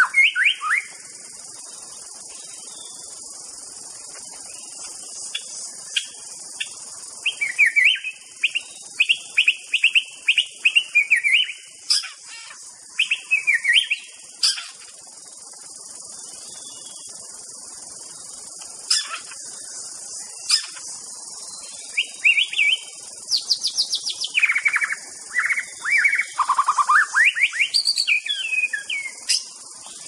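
White-rumped shama singing: runs of quick, clear whistled notes sliding up and down, in bursts with a pause of a few seconds midway, over a steady high-pitched hiss.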